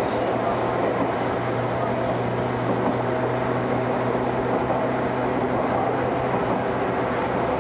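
Ohmi Railway electric train running at a steady speed, heard inside the car: a constant rumble of the wheels on the rails with a steady low hum under it.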